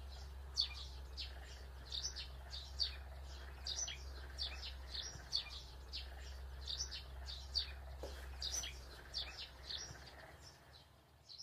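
Small bird chirping, short high chirps repeating about twice a second over a steady low hum; the sound fades out near the end.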